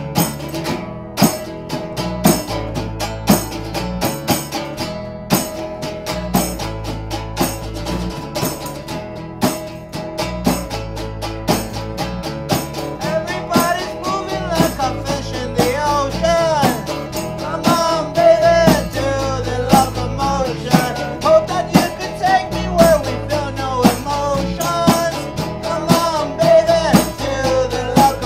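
A small band playing a song live: strummed acoustic guitar, electric bass and a simple beat on a single drum, with a voice singing from about halfway through.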